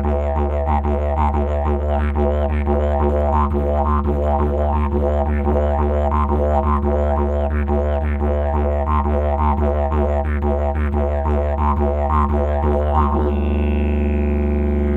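Didgeridoo music: a steady low drone with rhythmic pulsing overtones. About thirteen seconds in, the pulsing gives way to a held note with a high call gliding downward.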